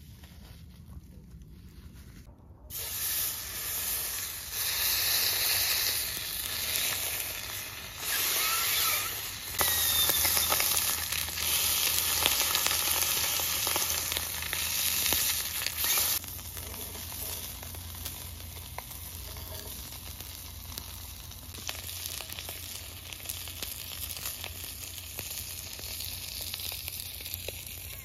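Rack of lamb searing on a hot grill pan, the fat sizzling loudly and steadily. The sizzle starts suddenly a few seconds in and drops to a quieter sizzle a little past halfway.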